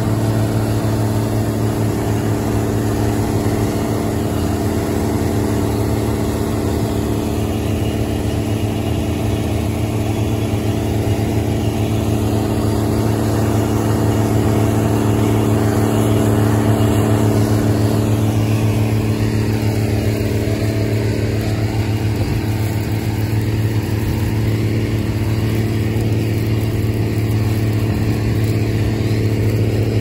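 An engine running at a steady speed with an even, unchanging hum, as in harvest work.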